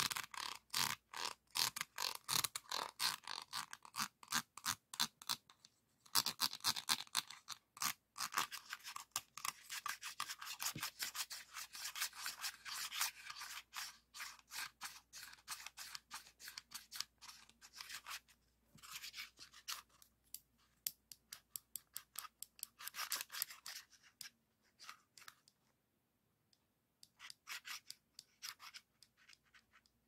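Green hard-plastic diamond-painting trays handled by fingers: a rapid, uneven run of small clicks and scratches on the plastic, which thins out to a few short bursts near the end.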